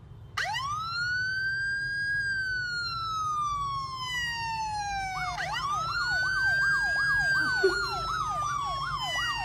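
Electronic emergency-vehicle siren: a wail that rises quickly, slowly falls, then rises again. From about halfway, a second fast-warbling yelp tone sounds over it, about three sweeps a second. A steady low rumble runs underneath.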